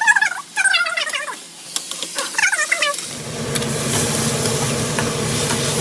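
A pet's high, wavering whines in short runs during the first three seconds. About three seconds in, a steady rumbling noise with a low hum takes over.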